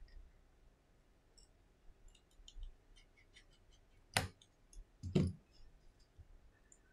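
Small tool and fingertip clicks while working inside an opened iPhone XS: faint scattered ticks, then two louder, sharp clicks about a second apart as fingers press on the phone's internals.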